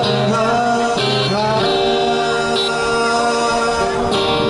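Male voice singing long held notes that slide up into the next pitch, over a strummed guitar; a fresh chord is struck near the end.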